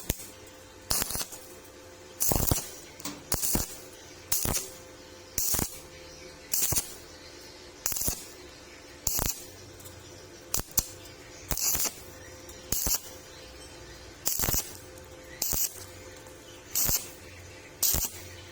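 Stick-welding arc struck in short bursts about once a second, each a brief crackling hiss, as thin 1.2 mm square steel pipe is welded in an on-off stitch pattern.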